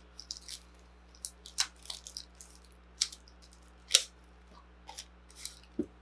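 Model kit packaging crinkling and crackling as it is handled, in short irregular crackles, with sharper ones about one and a half, three and four seconds in.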